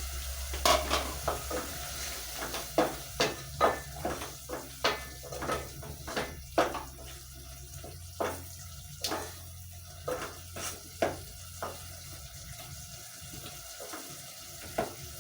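Spoon knocking and scraping against a cooking pot as potatoes are stirred into a simmering stew base, irregular clinks that thin out after about eleven seconds, over a faint sizzle.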